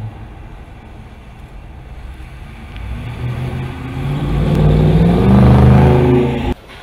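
2018 Dodge Charger Daytona's Hemi V8 exhaust as the car drives past, a low rumble that swells and rises in pitch under acceleration from about halfway in. It is loudest just before it cuts off suddenly near the end.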